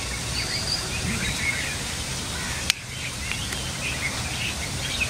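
Steady outdoor background noise with birds chirping faintly, and one sharp click about two and a half seconds in.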